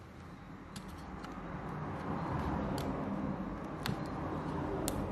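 A few sharp clicks and taps of small repair tools on phone parts, over a low rumbling background noise that builds up from about a second in.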